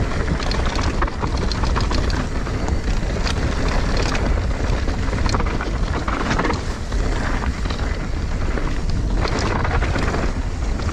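Wind rushing over the camera microphone and tyres rumbling over a dirt trail as a mountain bike is ridden downhill, with frequent short rattles and knocks from the bike over the rough ground.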